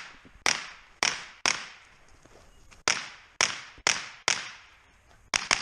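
Gunshots from a carbine in quick strings: three shots about half a second apart, a pause, four more, then two close together near the end.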